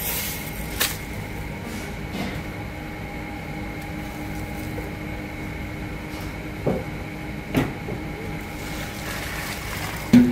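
Boiled glass noodles and their hot water being tipped from a large stock pot into a plastic colander, over a steady rumble with a faint hum. A few knocks along the way, then a splash and two loud clunks near the end.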